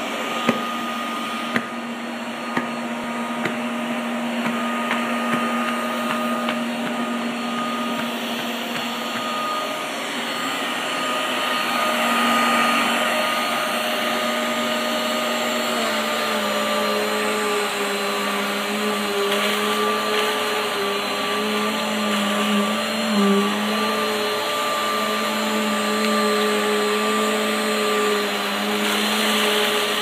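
Eureka AirSpeed Exact bagless upright vacuum cleaner running on a rug: a steady motor hum and hiss, with a few sharp clicks in the first seconds as scattered bits are sucked up. About halfway through, the hum drops to a slightly lower tone and holds there.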